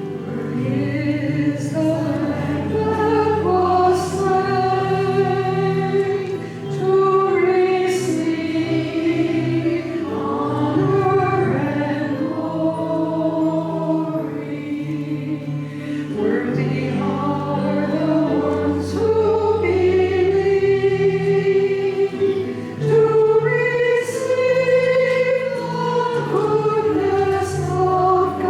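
Music: a group of voices singing a slow hymn, held notes moving from phrase to phrase.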